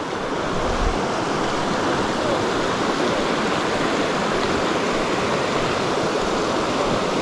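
Small mountain creek rushing over rocks in a riffle: a steady, even rush of water.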